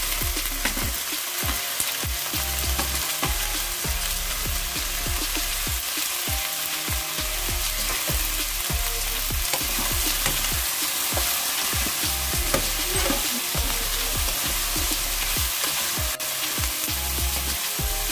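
Cubed squash and string beans sizzling in hot oil in a wok, stirred and scraped around the pan with a wooden spatula. There is a steady hiss of frying, with frequent soft knocks of the spatula against the pan.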